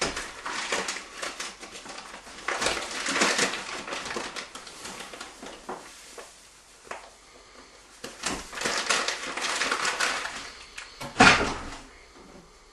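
Crinkling and rustling of a bag of white sugar as sugar is poured out of it, in several spells, with one sharp knock about eleven seconds in.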